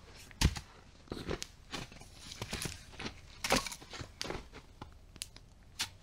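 Irregular crunches and knocks with rustling between them. The loudest crunches come about half a second in and again past the middle.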